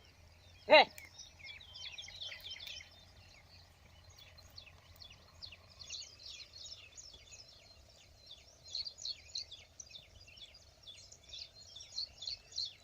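A man shouts "Hey!" once, a ploughman's call to the bullock, about a second in. After it, birds chirp over and over with short high calls, coming thicker near the end.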